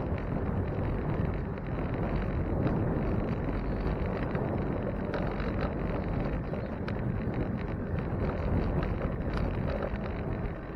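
Wind rushing over the microphone while cycling along a street, a steady low rumble, with scattered light clicks and rattles.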